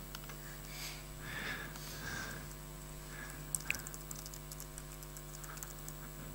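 Typing on a laptop keyboard: a run of quick, light key clicks starting about halfway through, over a steady electrical hum.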